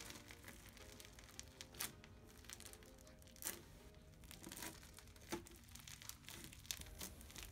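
Foam-bead slime (floam) crackling and crunching as fingers squeeze and press it: an irregular run of small sharp crackles, with a few louder ones.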